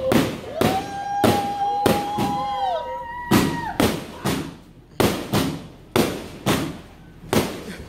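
A multi-shot fireworks cake firing off a rapid barrage of sharp bangs, about two a second. A few long, steady whistle-like tones run through the first half.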